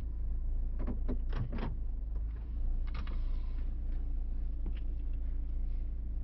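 Steady low rumble inside a vehicle's cabin, with a quick cluster of clicks and knocks about a second in and another click about three seconds in.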